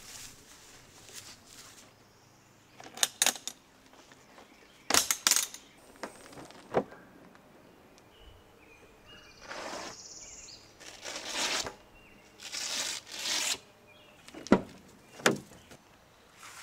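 Scattered sharp clicks and knocks with a few short bursts of rustling, from gear being handled at a pickup truck and its pop-up camper.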